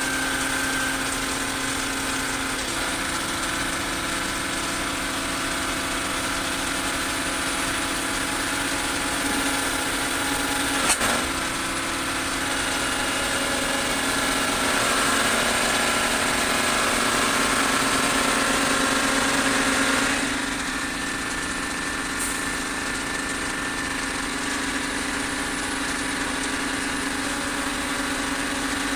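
Excavator's diesel engine running, its note shifting a few times. It runs louder and higher through the middle-to-late part, then drops back suddenly. There is a single sharp knock a little before the middle.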